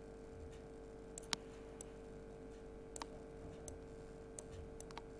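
Computer mouse button clicking, with about eight short, sharp clicks at uneven intervals as letters are drawn on screen; the loudest comes about a second and a half in. A low steady hum runs underneath.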